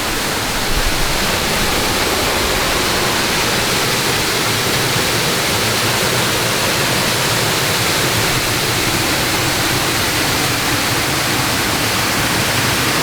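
Waterfall flowing well, a steady rush of water with no change.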